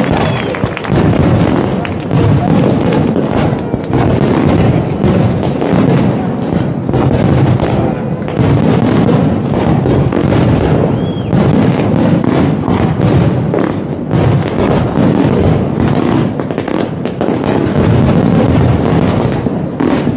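Large fireworks display: a dense, continuous barrage of bangs and deep booms with no let-up, and a brief whistle about eleven seconds in.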